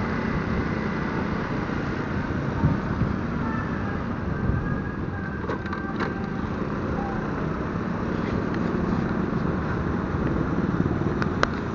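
Motorcycle riding in town traffic: its engine running steadily under road and wind noise on the bike-mounted camera's microphone, with a couple of sharp clicks midway and near the end.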